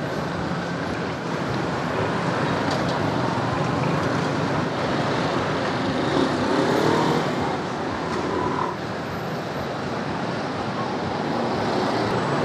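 Street traffic noise, motor scooter engines running and passing in a steady wash of sound that grows louder for a few seconds in the middle.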